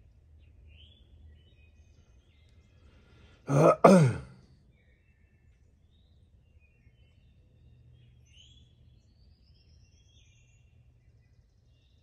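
A man clears his throat once, a short two-part rasp about three and a half seconds in. Otherwise there are only faint bird chirps over a low outdoor background.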